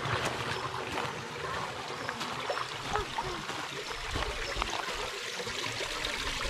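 Steady rushing of running water, with faint voices now and then.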